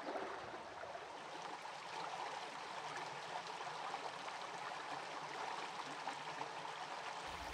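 Shallow rocky stream running steadily, its water rushing and splashing over stones in a small cascade.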